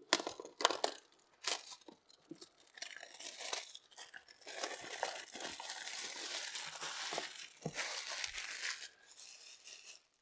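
Clear plastic shrink wrap being torn and peeled off a cardboard box: a few sharp rips at first, then continuous crinkling of the film that tails off near the end.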